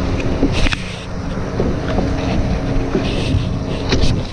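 A small wooden boat being poled up a shallow river: water sloshing around the hull and wind buffeting the action-camera microphone, with a sharp knock less than a second in and another near the end.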